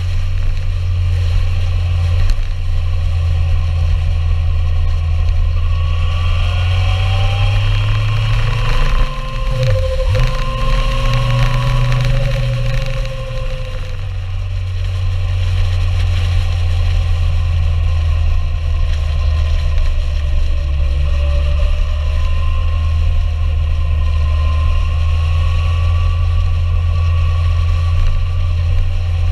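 Motorcycle engine heard from the rider's own camera under steady wind rumble, its pitch rising and falling with the throttle. About ten seconds in the revs drop briefly and come back up.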